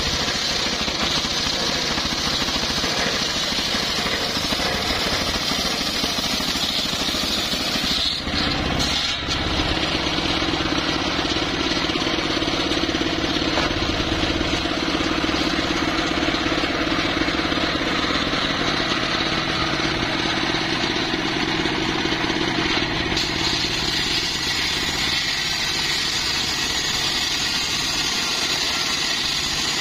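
Homemade circular saw bench ripping a mahogany log lengthwise: the spinning blade cuts steadily through the wood over the running of its stationary engine, with a brief drop about eight seconds in.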